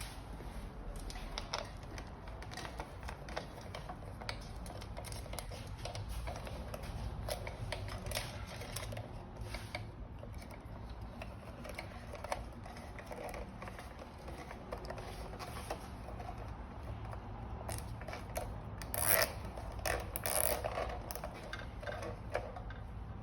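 Hands working on an e-bike's wiring: small clicks, rubbing and plastic rustles as cables and connectors are handled and tucked, with a couple of louder clatters near the end.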